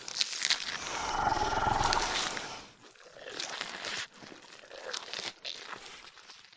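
Brontosaurus roar sound effect, a designed dinosaur call: a long, loud roar over the first two and a half seconds or so, then quieter, raspy growls that cut off suddenly at the end.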